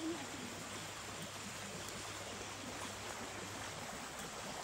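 Steady rushing of water flowing in a small river.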